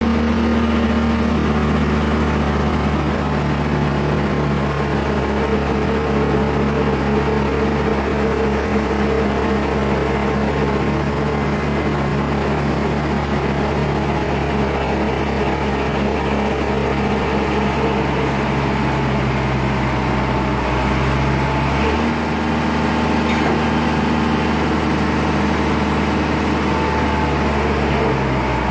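A large engine running steadily with a low, even hum; its tone shifts once, about three-quarters of the way through.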